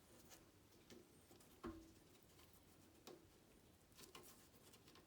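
Faint small knocks and clicks of hands working a new rubber seal onto a motorcycle fuel pump, with a short knock about a second and a half in, the loudest, and a few lighter taps later.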